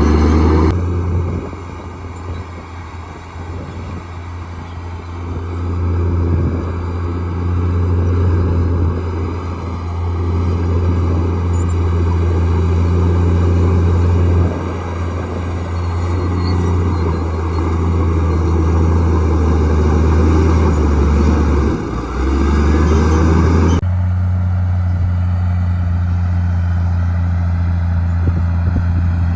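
Komatsu D58E bulldozer's diesel engine running under varying load, its level dipping and swelling over several seconds. About five seconds before the end the sound changes suddenly, the higher clatter dropping away and leaving a steady engine hum.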